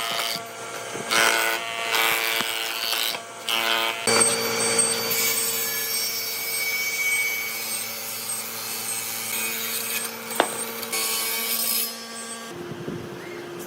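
A power tool working wood: a steady motor hum under loud, uneven rasping as the wood is cut.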